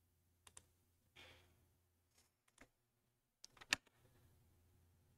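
Near silence with a few faint, scattered clicks from a computer mouse and keyboard, the loudest a little before the four-second mark, and a soft breath about a second in.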